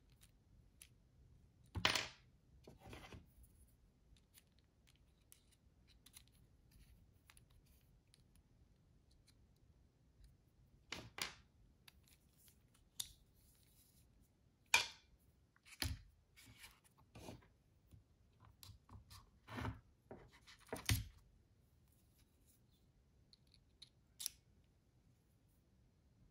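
Irregular sharp clicks, taps and short scrapes of small steel precision bits being pulled from and pushed into a foam bit tray and snapped into the magnetised aluminium driver handle of an iFixit Mako kit.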